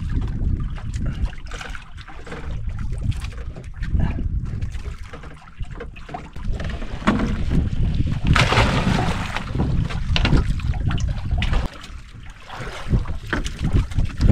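Wind rumbling on the microphone, with water sounds on a small boat at sea. A louder rushing stretch comes a little past halfway and cuts off suddenly.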